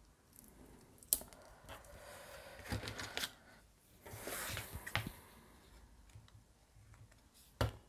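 Cardstock pop-up mechanism being handled and worked by hand: paper sliding and rustling in two short stretches, with scattered light clicks and taps, a sharper tap about a second in and two more near the end.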